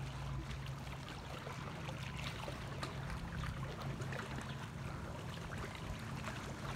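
Lake water lapping and trickling along the rocky shoreline, a constant fine crackle over a steady low hum.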